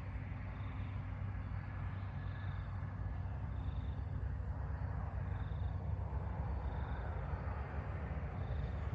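Outdoor ambience: a steady low rumble under a constant thin high whine, with a short high chirp repeating about once a second.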